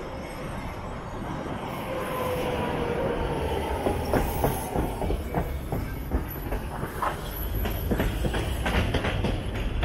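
Tram running on its rails over a steady low rumble. In the first half a thin whine shifts slowly in pitch, then a run of irregular metallic clacks follows as the wheels cross rail joints.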